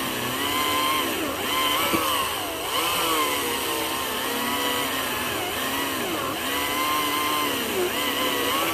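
Greenworks 82V GS181 battery-powered electric chainsaw cutting through a log. Its motor whine dips in pitch as the chain bogs down in the wood and climbs back again, several times.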